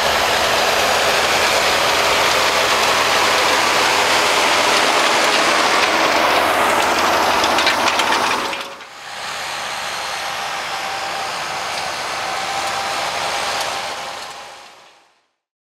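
John Deere tractor pulling a cultivator across a tilled field: loud, steady engine and implement noise. About eight and a half seconds in it drops to a quieter steady running sound with a faint thin whine, which fades out near the end.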